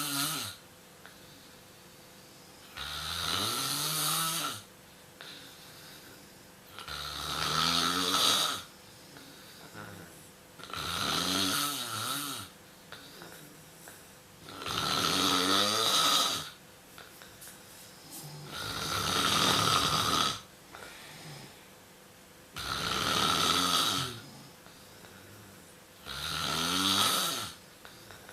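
A sleeping pet snoring: about seven drawn-out snores, one every four seconds or so, each lasting about a second and a half and rising in pitch as it begins.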